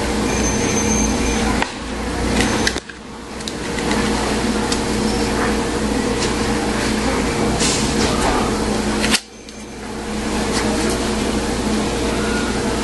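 Vipertek VTS-880 stun gun arcing across its electrodes: a loud, steady electric buzz that dips sharply about three seconds in and again about nine seconds in.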